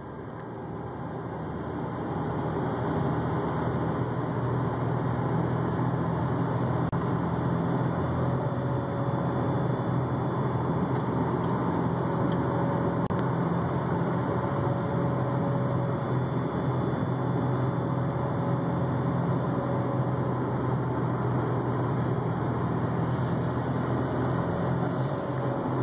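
A 2004 Subaru Impreza WRX STI making a steady whining hum over the general noise of the car. The sound builds over the first couple of seconds and then holds level, with a faint higher whine drifting in and out through the middle.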